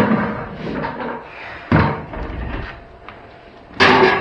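Metal parts of an old battery charger clattering and banging as it is pulled apart, with three loud knocks about two seconds apart and rattling between them.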